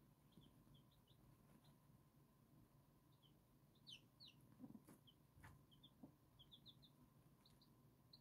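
Faint peeping of young Silver Laced Wyandotte chicks: short, high cheeps in quick little runs. A brief low sound and a couple of faint taps come about halfway through.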